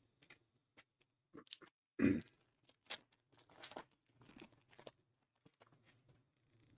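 Trading cards and pack wrapper being handled: a string of short rustles, crinkles and clicks, with a duller thump about two seconds in.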